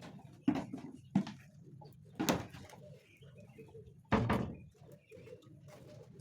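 Chickens calling in short bursts over a low steady background, with four louder sharp sounds about half a second, one second, two seconds and four seconds in.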